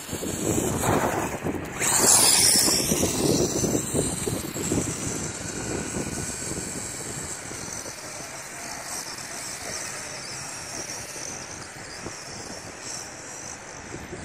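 Kyosho Turbo Optima RC buggy running on rough asphalt, its Le Mans 240S brushless motor whining over the rasp of the tyres. It is loudest with a sharp high burst about two seconds in, then fades steadily as the buggy drives away.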